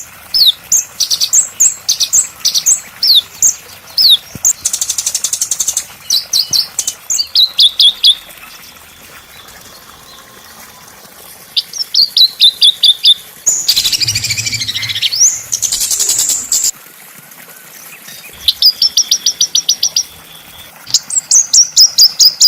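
Small songbirds singing: series of quick, high down-slurred chirps and two fast rattling trills, with a pause of a few seconds about a third of the way through.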